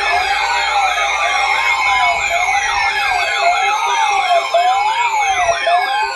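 Electronic siren-style alert tones, several layered at once: a fast warbling yelp, a slower wail rising and falling about once a second, and repeated long sweeps falling from a high pitch.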